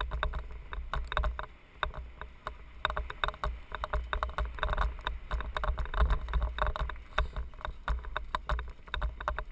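Mountain bike rolling over a rough dirt trail: dense, irregular rattling and clatter from the bike and its camera mount, over a steady low rumble of wind and vibration on the microphone.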